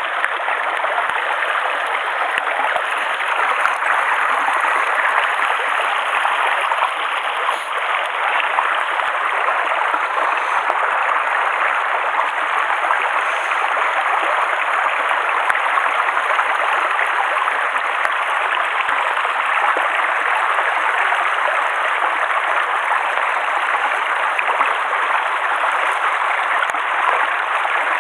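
Shallow mountain stream running steadily over stones, a constant rushing and gurgling of water.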